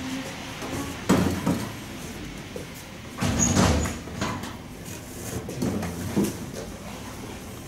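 Old wooden candle-wick machine being worked by hand: wooden sliding and knocking sounds, a sharp one about a second in and a longer, louder one around three and a half seconds, then a few lighter knocks.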